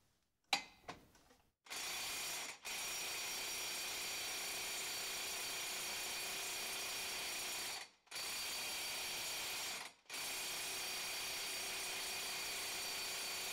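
Ingersoll Rand air impact wrench hammering on a 12mm hex bit against a Sea-Doo jet pump impeller, in four runs with brief gaps, the longest about five seconds. The impeller does not break loose; the owner puts that down to a hose too small for the gun's full power.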